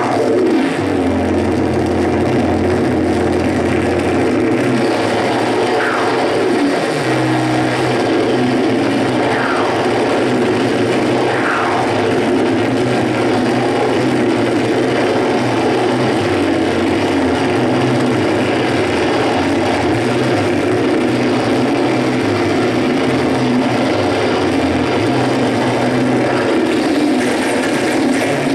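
Live electronic noise music from a table of patched effects pedals and small synthesizers: a dense, loud wash of noise over a low, shifting drone. Several falling pitch sweeps cut through it in the first dozen seconds.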